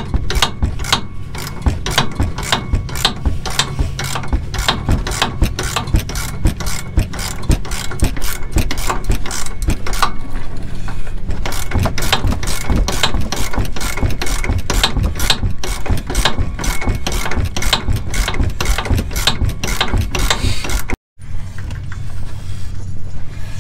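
Hand ratchet wrench clicking in rapid strokes, about four a second, as it tightens the upper stem nut of a front shock absorber whose shaft is held with locking pliers; the clicking pauses briefly about halfway. A steady low hum runs underneath.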